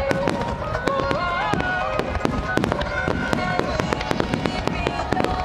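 Fireworks display: a rapid, continuous string of shell bursts going off several times a second, over music with a stepping melody.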